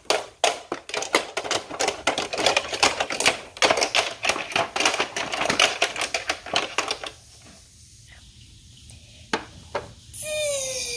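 Rapid, dense clicking and clattering for about seven seconds, then a lull with a couple of single clicks; near the end a whistle-like tone starts and slides steadily down in pitch.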